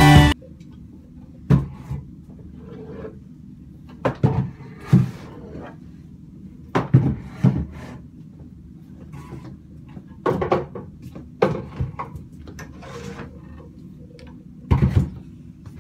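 Wooden chairs being moved and set down: irregular wooden knocks and clunks, about a dozen, with quiet room tone between them and the loudest knock near the end.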